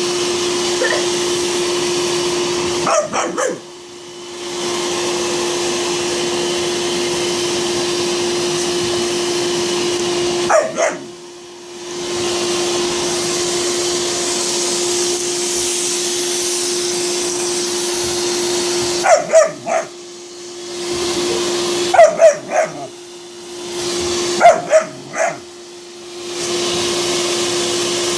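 A vacuum cleaner runs with a steady hum and drops away about five times. Around each drop a dog gives short, sharp barks, then the vacuum comes back on.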